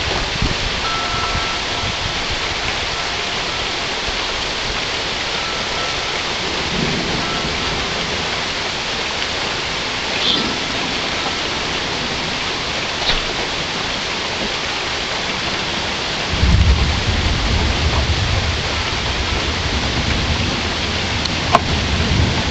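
Steady rain falling. About three quarters of the way through, a low rumble of thunder begins and keeps rolling.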